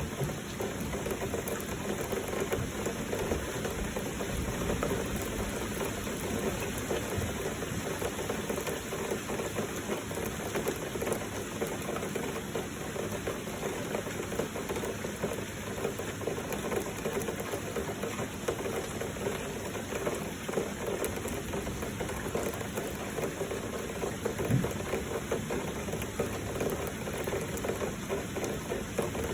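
Heavy rain falling steadily, an even rushing noise with no let-up, with a single soft low thump late on.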